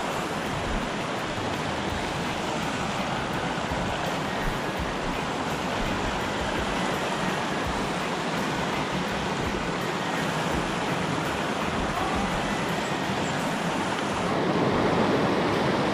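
Shallow mountain river rushing over rocks in small rapids: a steady, even rush of water that grows a little louder near the end.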